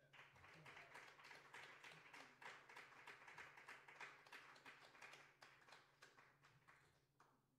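Faint applause from a small audience, the claps thinning out and stopping near the end.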